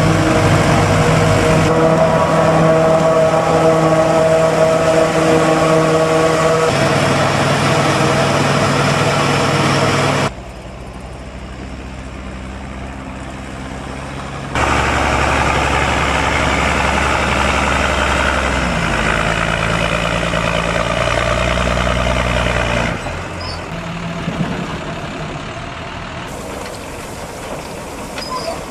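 Forage harvest machinery running: a Claas Jaguar SF80 forage harvester chopping maize beside a tractor and trailer, a steady machine hum with strong held tones. About ten seconds in it turns quieter, and about fifteen seconds in a loaded tractor's diesel engine comes in deep and loud. Near the end it drops to the quieter sound of a forage wagon unloading chopped maize.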